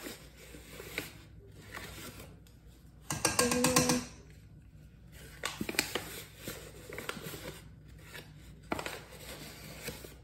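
Measuring spoon scooping and scraping in a paper flour bag, with scattered light clicks and paper rustles. A short, louder tone sounds once about three seconds in.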